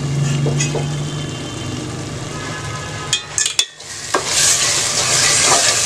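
Onion-tomato masala gravy frying and sizzling in a steel pot while a steel ladle stirs it. The gravy is well sautéed, ready for the fried chicken. A short break comes a little past halfway, after which the sizzle is louder.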